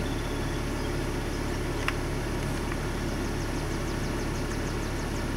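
Steady low hum of the car with the ignition on, heard inside the cabin, with a single faint click about two seconds in.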